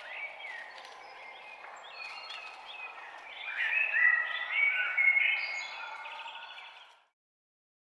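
Forest ambience of several songbirds chirping and singing short whistled phrases over a soft background hiss, loudest a few seconds in. The sound cuts off abruptly about a second before the end.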